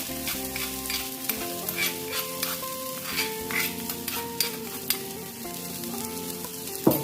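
Shallots, garlic, lemongrass and chillies frying in hot oil in a pressure cooker pot, sizzling steadily, with irregular clicks and scrapes of a stirring utensil. Instrumental background music plays underneath.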